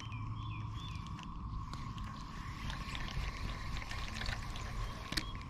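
Out on the water from a fishing boat: a steady low rumble of wind and lapping water with a constant thin hum from the bow's electric trolling motor, birds chirping short falling notes over it, and a couple of sharp clicks near the end.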